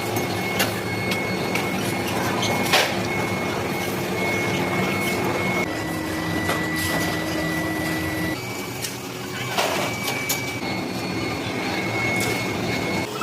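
A metalworking machine tool running with a steady hum and a high whine, scattered with sharp metallic clicks. The pitch of the whine shifts abruptly about six and eight seconds in.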